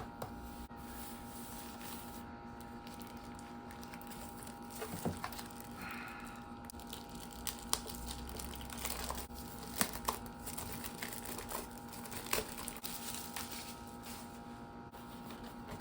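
Keyboard packaging being handled and opened: plastic and cardboard crinkling and rustling, with scattered sharp clicks and taps, over a steady hum.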